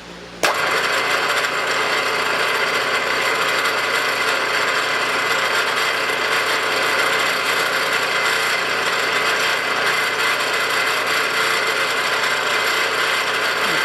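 The gear-driven spindle of a 3-in-1 lathe-mill running, with a steady gear rattle and whine. It starts abruptly about half a second in.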